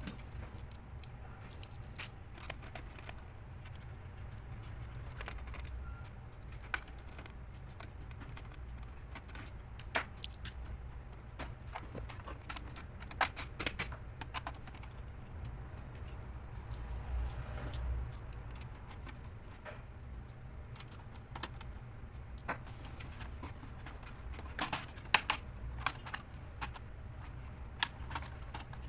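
Irregular small clicks and light clinks of hands and small tools working on a laptop's case and parts, over a low steady hum; a few clusters of clicks stand out.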